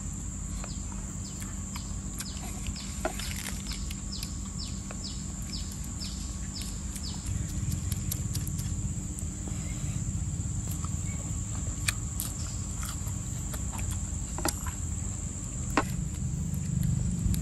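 Outdoor ambience: a steady high drone of insects, with a run of about a dozen quick falling chirps, roughly two a second, over the first seven seconds. A few light clicks come later.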